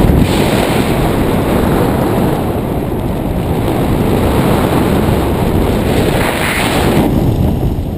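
Wind buffeting the camera microphone during a descent under an open parachute: a steady, loud rumble, hissier for about a second near the end before it eases.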